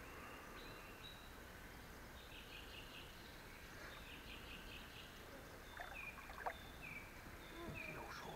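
Quiet riverside ambience with small birds calling: scattered chirps, then a few short repeated calls in the second half. A few soft clicks and knocks come in the last few seconds.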